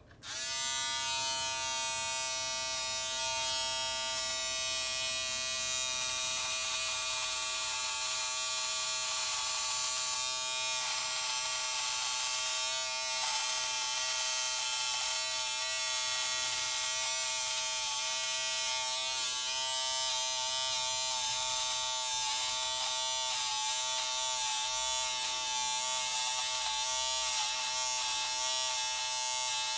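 Braun XT5 electric trimmer-shaver switched on right at the start and buzzing steadily as it shaves facial stubble. Its hum wavers slightly in pitch now and then.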